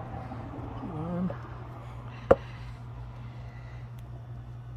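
A single sharp metallic click about two seconds in: a steel retaining clip springing out of a U-joint bearing cap's groove as it is pried with snap-ring pliers. It sits over a steady low hum, with a brief murmur of voice about a second in.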